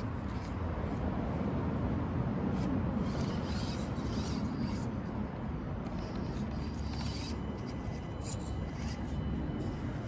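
Axial SCX24 1/24-scale micro crawler climbing over rocks: its small electric motor and tyres give faint, intermittent scraping against the stone over a steady low outdoor rumble.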